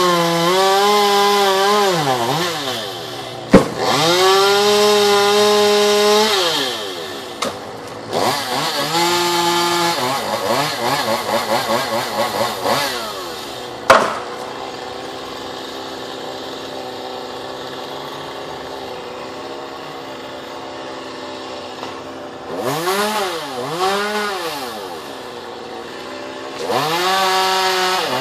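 Chainsaw cutting wood, revving hard under load in several bouts and easing off between them. In the middle it drops to a steady idle for several seconds, is blipped up a few times, then goes back into the cut near the end. Two sharp knocks, about three and a half seconds in and again around fourteen seconds.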